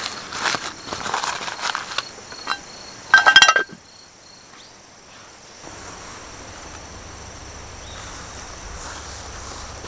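Handling noise of a paper-lined cast-iron mess tin turned close to the microphone: light knocks and paper rustling, then a short, loud squeaky scrape about three seconds in. After that it drops to quiet outdoor ambience with faint steady insect chirping and, from about halfway, a low steady hum.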